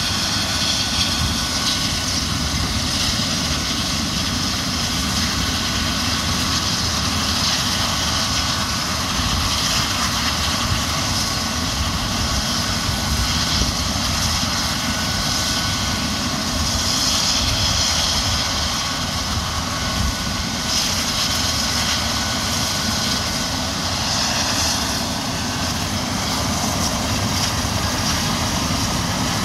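Eurocopter EC135 air-ambulance helicopter's twin turbine engines running steadily on the ground, a continuous turbine hiss with a faint high whine and low rumble, as the helicopter runs up before takeoff.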